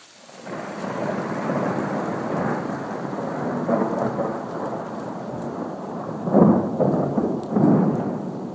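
Thunder rolling in about half a second in and rumbling on, swelling to two louder peaks near the end, over steady falling hail.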